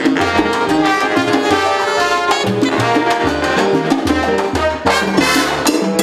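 A salsa big band playing live: saxophones and trumpets over a moving bass line and Latin percussion.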